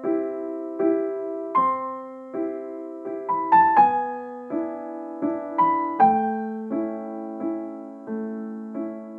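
Piano intro music: chords struck about every three-quarters of a second, each ringing and fading, with a quicker run of higher notes near the middle.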